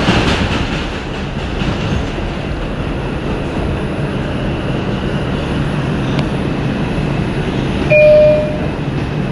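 Inside an R142 subway car running through the tunnel: a steady low rumble of the train in motion. A short, loud, steady tone sounds about eight seconds in.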